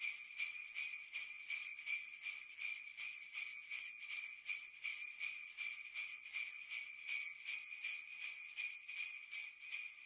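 Sleigh bells shaken in a steady, even rhythm, about two to three shakes a second, with a bright, high jingling.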